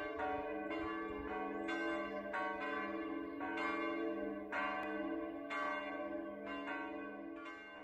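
Church bells ringing, a stroke roughly every second with long overlapping ringing; the ringing starts to die away near the end.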